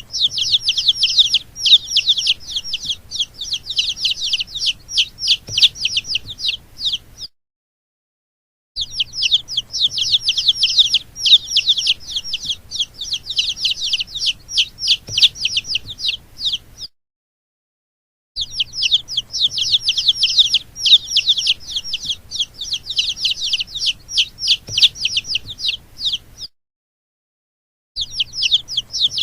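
Baby chicks peeping, a dense chorus of quick, high, falling peeps, several a second. The chorus comes in stretches of about eight seconds broken by short gaps of dead silence.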